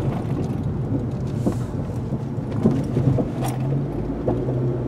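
Cabin noise of a 2018 Honda Civic Hatchback Sport on the move: a steady engine and road hum, with a couple of faint knocks about a second and a half and three and a half seconds in.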